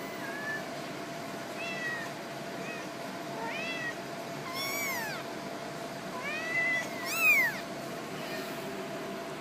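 Young cats meowing, a string of short high-pitched meows that rise and fall, about one a second, with the loudest calls about two-thirds of the way through. A faint steady hum runs beneath.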